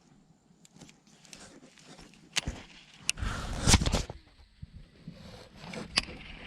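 Scattered clicks and knocks of fishing gear being handled in a small boat, with a louder low rumble on the microphone a little past three seconds in.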